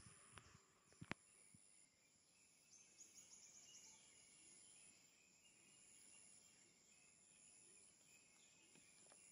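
Faint tropical forest ambience: an insect's thin, high trill sounding in spells of about a second with short breaks, a quick ticking trill around three seconds in, and a couple of sharp knocks about a second in.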